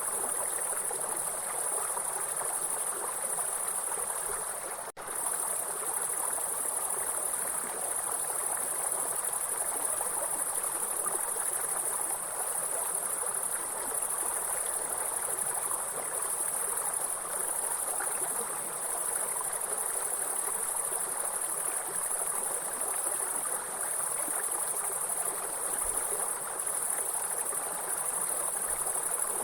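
A steady, high-pitched insect chorus, grasshoppers chirring, over the even rush of running water. The whole sound drops out for an instant about five seconds in.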